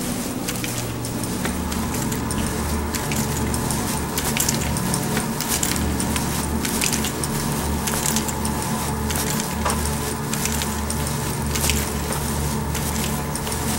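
Footsteps walking on a carpeted corridor with rustling handling noise from a handheld camera, over a steady low hum.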